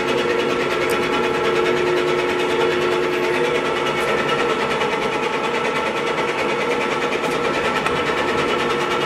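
24-inch Clausing Metosa engine lathe running, giving a steady mechanical whir with a constant hum.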